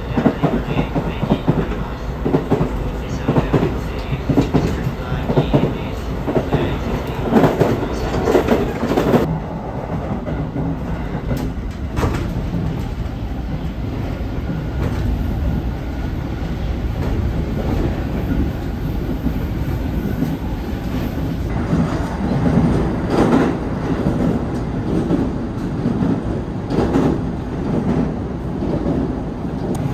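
Electric local train running, heard from inside the carriage: a steady rumble with repeated clickety-clack of the wheels over rail joints, strongest in the first several seconds and again near the end.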